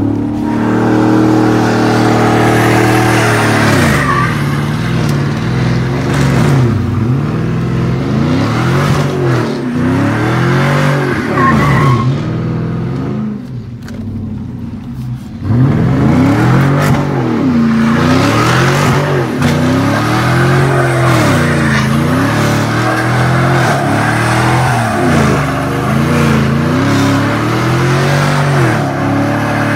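Chevrolet Silverado V8 revving up and down over and over while doing donuts, heard from inside the cab. About halfway through the engine eases off and goes quieter for a couple of seconds, then picks up again with quick rises and falls.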